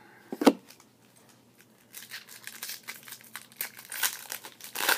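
A sharp knock about half a second in, then a trading-card pack's wrapper crinkling and tearing as it is ripped open.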